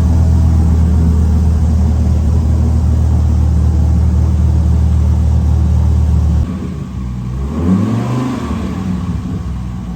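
An engine running at a steady pitch, which drops off suddenly about six and a half seconds in, then rises in pitch as it revs up.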